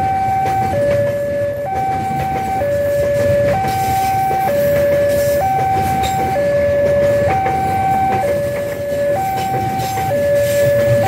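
A level-crossing warning alarm sounds a two-note ding-dong, a higher and a lower tone taking turns about once a second. Under it a freight train of container flatcars rolls past with a steady rumble of wheels on rail.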